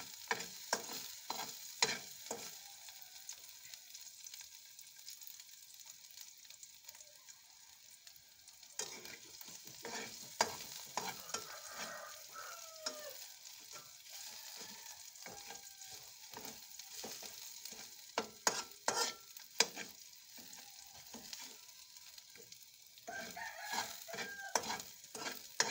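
Chopped garlic sautéing in cooking oil in a pan, frying toward golden brown: a steady sizzle with a metal spatula scraping and clinking against the pan as it is stirred. A rooster crows in the background about ten seconds in and again near the end.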